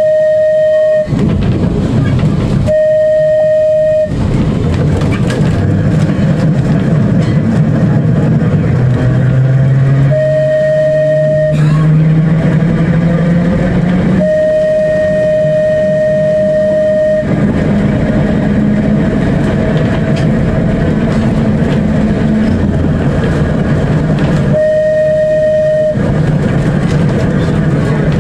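Electric tram running along the line, its low hum rising in pitch about eight to fourteen seconds in. Its horn sounds a steady single-note blast five times, each lasting one to three seconds.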